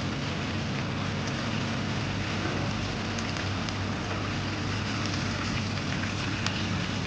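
Honey-glazed chicken thighs sizzling in a pan: a steady hiss with a few faint clicks.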